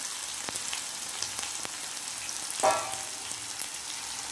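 Sliced onions sizzling and crackling in hot oil in a nonstick frying pan, being sautéed until they turn brown. A short squeak stands out a little past halfway.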